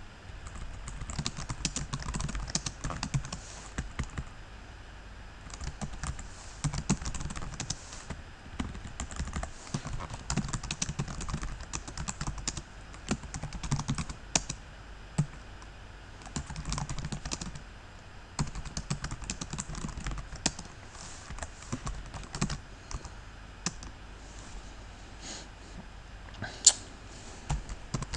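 Typing on a computer keyboard: quick runs of key clicks broken by short pauses, with one sharper keystroke near the end.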